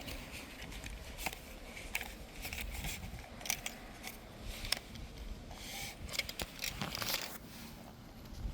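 Scattered small clicks and scrapes, with short rustling hisses about six and seven seconds in: handling noise as a tape measure is worked against asphalt shingles.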